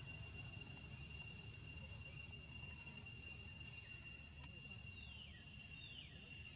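Steady, high-pitched insect drone, like crickets or cicadas, over a low rumble. Two short calls fall in pitch about five and six seconds in.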